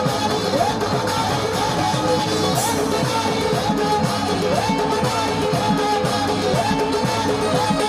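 Live qawwali music without words: harmonium and drums, a short melodic phrase repeating about once a second over a steady drum rhythm.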